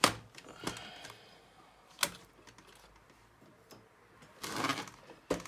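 Scattered sharp clicks and knocks from handling a disassembled laptop's parts, the loudest right at the start and another about two seconds in, with a short rustling scrape a little after four seconds.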